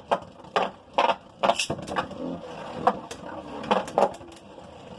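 Beyblade Burst spinning tops, Drain Fafnir and Hercules, clashing in a plastic stadium: repeated sharp clacks of impact, several close together in the first two seconds and a few more around three and four seconds in, over a steady whirring of the spinning tops.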